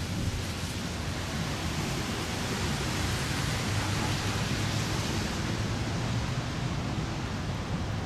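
Steady outdoor wind noise rushing over the microphone, with a low rumble underneath.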